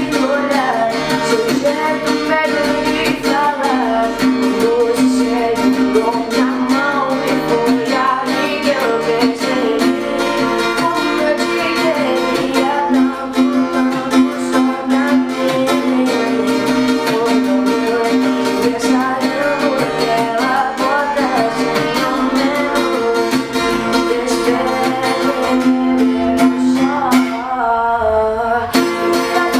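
A woman singing a slow melody while strumming an acoustic guitar.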